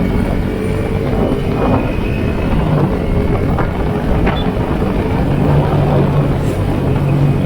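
Yamaha Sniper 150 underbone's single-cylinder four-stroke engine running under way, its note holding fairly steady, inside a constant rush of noise.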